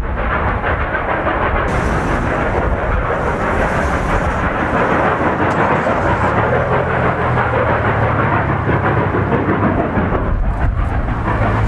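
Narrow-gauge K36 2-8-2 Mikado steam locomotive working hard up a steep 4% grade, heard from a distance: its exhaust blurs into a steady rushing noise without distinct beats. A low steady hum joins about halfway through.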